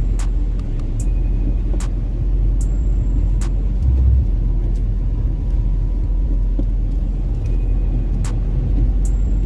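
Car heard from inside the cabin as it drives on a snow-covered road: a steady low rumble of engine and tyres, with a few sharp clicks and a low thump about four seconds in.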